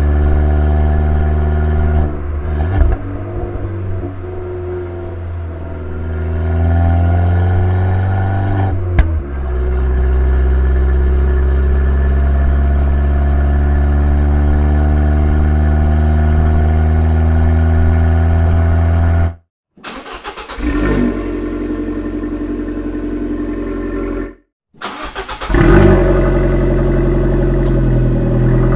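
Exhaust note of a 2012 Abarth 500C's 1.4-litre turbocharged four-cylinder engine, idling and revving. The pitch rises and falls in the first few seconds, climbs again a few seconds later, then holds steady. Near the end it cuts off abruptly and comes back twice.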